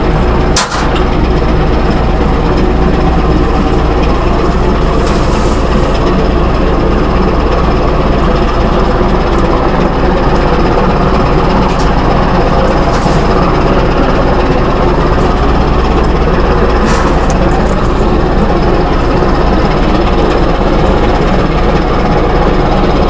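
Loud, steady running machinery with a low rumble, a sharp knock about half a second in, and a few faint clicks after it.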